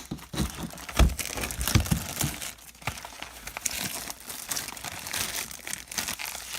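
Plastic wrap crinkling and crumpling as a baseball card hobby box is unwrapped, with a few light knocks in the first two seconds.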